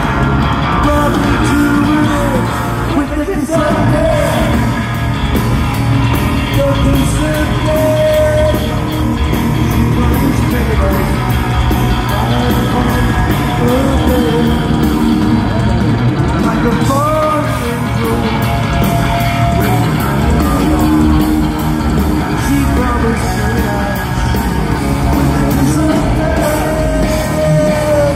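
Live hard rock band playing with heavily amplified electric guitars, bass and drums, a male lead singer singing long held notes over them.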